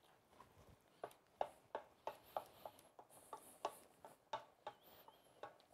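Wooden spatula working thick risotto in a stainless steel pot, giving faint soft knocks against the pot at about three a second.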